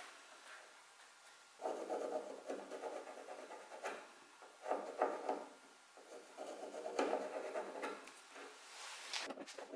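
A pencil scratching across the wood of a chair part in several short strokes as cut lines are marked, with a light tap near the end.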